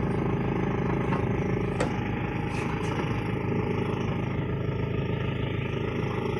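Mini dump truck's engine running steadily, heard from the truck bed, with one sharp click about two seconds in.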